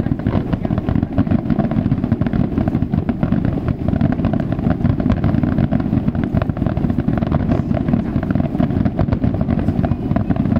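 Dense fireworks barrage: shell bursts run together into a continuous loud rumble, with many sharp crackles and pops throughout.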